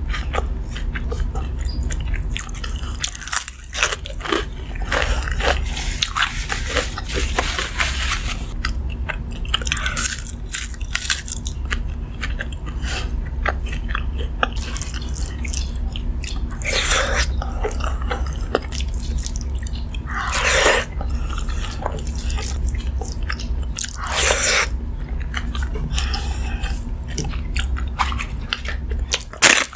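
Close-miked chewing and crunching of crisp food, a run of small crackling bites, with a few longer, louder crunches in the second half. A steady low hum runs underneath.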